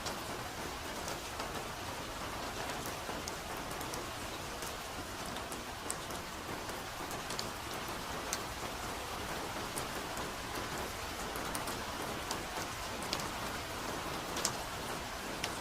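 Steady soft rain falling in a forest, an even hiss with scattered individual drops ticking sharply on near surfaces.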